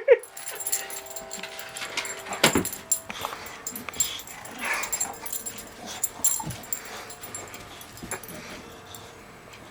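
A pet dog making a few short, soft sounds, spaced a couple of seconds apart, among scattered light clicks and rustling.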